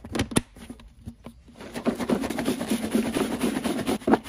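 A plastic cottage cheese tub's lid pressed shut with a few sharp clicks, then, from about a second and a half in, the tub shaken hard for a couple of seconds with corn kernels and dye tumbling inside, mixing the corn through the dye for bait.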